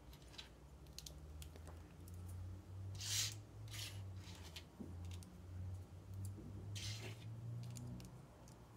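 Small LEGO plastic pieces clicking and scraping as smooth tiles are pressed onto a round part: scattered light clicks, with two louder rasping scrapes about three and seven seconds in, over a faint low hum.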